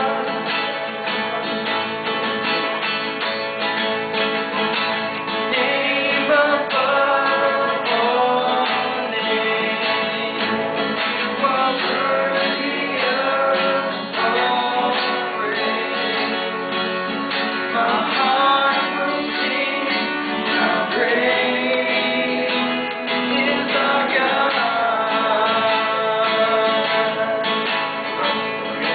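Male voices singing a song over strummed acoustic guitar.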